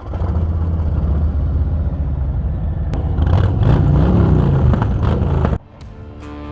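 Harley-Davidson V-twin motorcycle engine running and revving up as the bikes pull away, the pitch rising and falling about four seconds in. The sound cuts off suddenly near the end.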